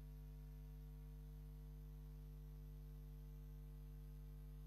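Near silence apart from a steady low electrical hum.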